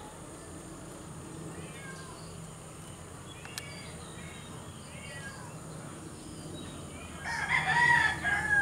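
A rooster crowing once, loudly, near the end, over faint short bird chirps earlier on. There is a single sharp click about three and a half seconds in.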